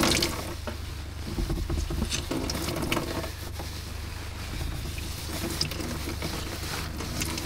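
Water trickling and dripping into a bucket as a soaked towel is wrung out by hand.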